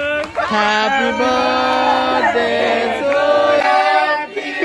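A group of people singing a birthday song together in held, stepping notes.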